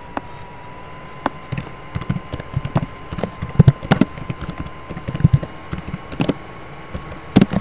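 Typing on a computer keyboard: irregular key clicks, several a second at times, with a louder pair of clicks near the end.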